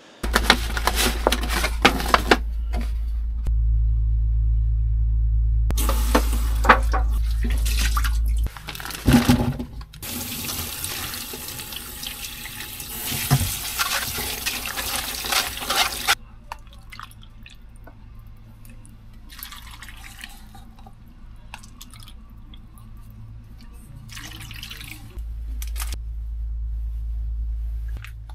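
Tap water running into a stainless steel sink and over a mesh strainer as food is rinsed by hand, from about ten seconds in until it stops about sixteen seconds in. A steady low hum lies under the first part.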